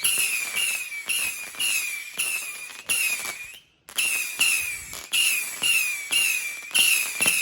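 Medusa firework cake going off: a rapid string of whistling shots, about two a second, each a sharp pop with a hiss and a short high whistle, broken by a brief gap a little past the middle.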